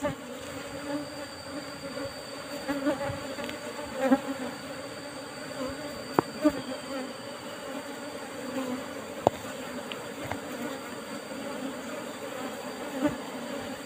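A swarm of Asian honey bees (Apis cerana) buzzing as a steady low hum around their broken-open nest, with a few sharp clicks about six and nine seconds in.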